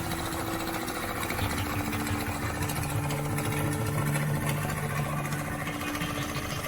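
Diesel engine of road-construction machinery running steadily at a low, even speed, with a rapid regular firing pulse.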